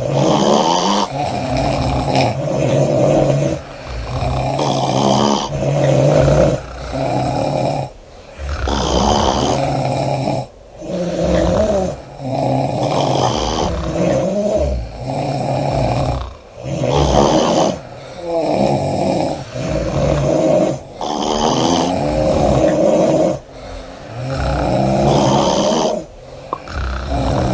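Loud snoring from several sleepers: one rasping snore after another, every second or two, with only short gaps between them.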